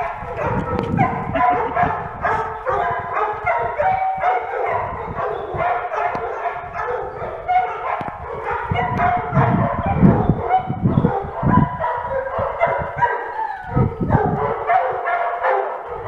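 Several dogs barking and yipping again and again in rough play.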